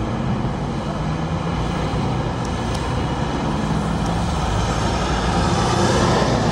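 Single-deck city bus approaching and driving past close by, its engine hum growing louder as it nears. Tyre rush on the wet road swells as it passes near the end.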